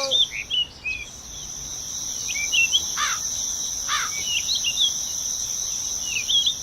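Insects keep up a steady high-pitched drone while birds chirp again and again. Two falling calls come about three and four seconds in.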